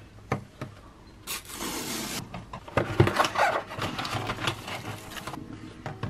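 A cardboard shipping box being opened by hand: a couple of light taps, a tearing rip lasting about a second as the box is torn open, then cardboard scraping and rustling with a few knocks as the boxed watch band is slid out, and a tap as it is set down near the end.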